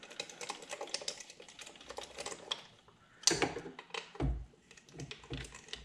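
Hand ratchet wrench clicking rapidly as a bolt is tightened, with a louder metallic clank about three seconds in and a dull thump about a second later.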